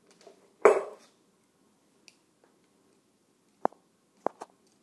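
Hand work on a turbo oil return line's AN fitting with a wrench: a short burst of handling noise about a second in, then three sharp metal clicks near the end as the wrench goes onto the fitting.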